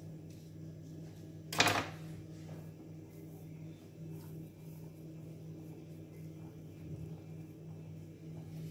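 A single sharp knock about a second and a half in, a knife striking the granite countertop, over a steady low hum.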